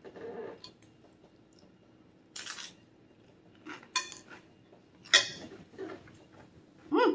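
A fork clinking and scraping against a dinner plate in a few scattered short knocks, the sharpest about five seconds in.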